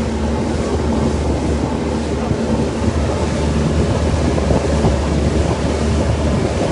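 Boat engine running steadily with a constant low hum, mixed with wind noise on the microphone.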